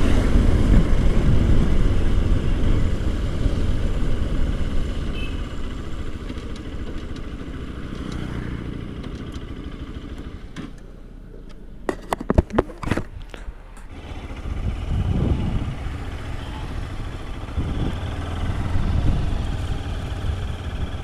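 Bajaj Pulsar RS200's single-cylinder engine heard from the rider's seat with wind noise, easing off as the bike slows to a crawl, a few sharp knocks around twelve seconds in, then the engine picking up again twice at low speed.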